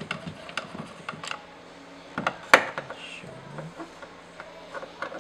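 Screwdriver working on a Chevrolet Aveo's plastic inner door-handle surround: a run of clicks, taps and scrapes of metal on hard plastic as the trim is unscrewed and pried loose, the loudest a sharp snap about two and a half seconds in.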